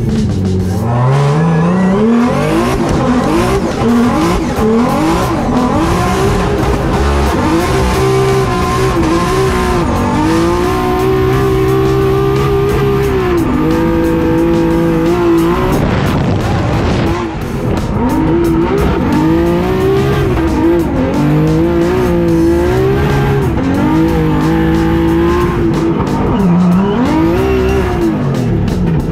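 A 1200-horsepower Nissan 370Z drift car's engine, heard from inside the cockpit, revving up and down again and again through a drift, with the revs held high for stretches of a few seconds, over tyre squeal.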